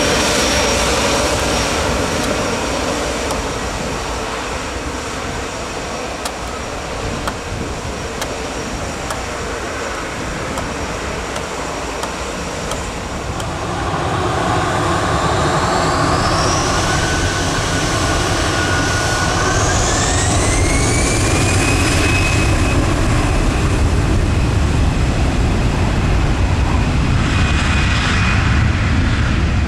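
Airbus A319 jet engines running at low power, then spooling up about halfway in, with a whine that rises in pitch over several seconds as takeoff thrust is applied. The engine noise then holds loud and steady with a high whine.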